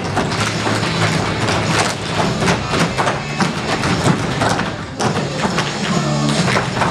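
Tap shoes of a group of dancers striking the stage in quick, rhythmic clusters of taps, over a backing music track.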